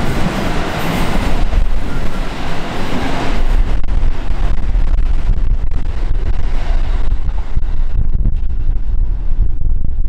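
Electric commuter train running close below, its passing noise loud for the first three seconds or so. The high end then falls away, leaving a steady low rumble with wind buffeting the microphone.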